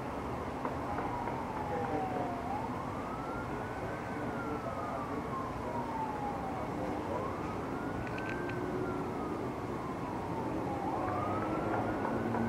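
Emergency vehicle siren wailing: each cycle rises quickly, then falls slowly, repeating about three times, every four to five seconds, over steady background noise.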